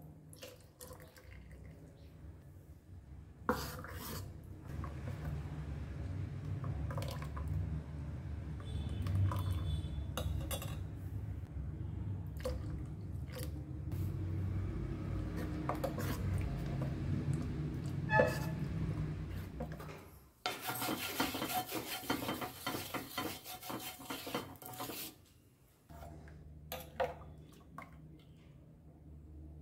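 A steel spoon stirring thin rice-and-coconut neer dosa batter in a steel bowl, sloshing with scattered clinks against the bowl. About two-thirds of the way through there is a louder, even rushing noise lasting about five seconds.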